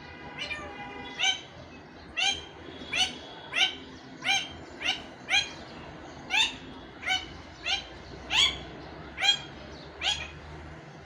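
Pet parakeet (tia pakhi) giving a run of about fifteen short, sharp, rising calls, spaced roughly half a second to a second apart. The owner says the bird is a little frightened.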